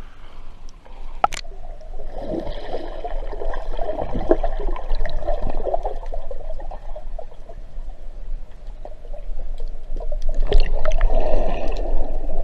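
Muffled underwater noise picked up by a submerged action camera: water rushing and gurgling with bubbles. There is a sharp click about a second in, and the noise grows louder near the end.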